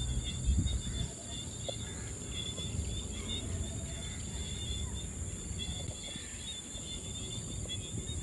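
Outdoor ambience: insects droning steadily at a high pitch, with scattered bird chirps over a low rumble.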